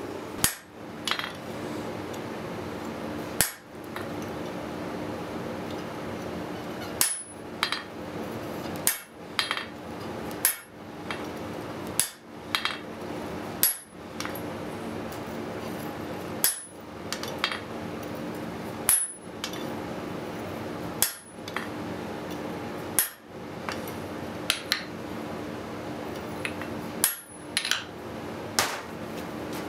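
Blacksmith's hand hammer striking hot steel on an anvil while forging a small rivet: about twenty sharp blows, single or in quick pairs, one to three seconds apart, each with a brief metallic ring. A steady low hum runs underneath.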